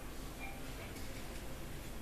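Felt-tip marker writing on a whiteboard: faint short squeaks and ticks of the tip over a steady low room hum.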